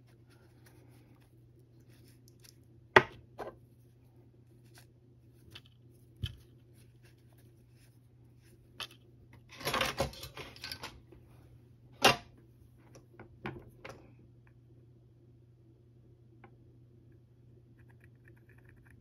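Small tools and parts handled on a workbench: scattered sharp clicks and knocks, the loudest about three seconds in and again about twelve seconds in, with a brief scraping rustle about ten seconds in, over a steady low hum.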